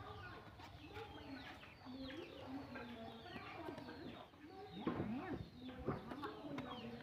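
Faint chickens clucking, with small birds chirping over them, a little louder about five seconds in.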